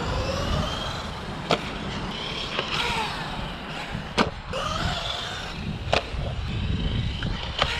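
Brushless electric motor of a 1/12-scale RC car whining as it revs up and down, with about five sharp knocks of the car hitting hard ground.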